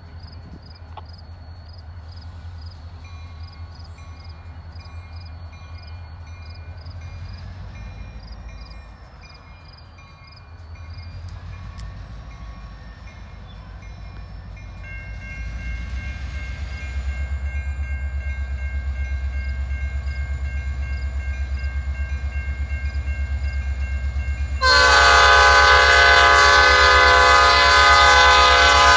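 Horn of an SD40-2 diesel locomotive sounding for a grade crossing as a freight train approaches. It is faint and distant at first, grows stronger, and becomes a loud close blast from about 25 seconds in. The locomotive's diesel engine rumble builds beneath it through the second half.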